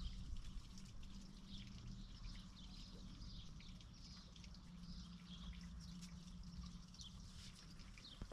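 Faint chirping of birds: many short, high calls, one after another, over a low steady hum.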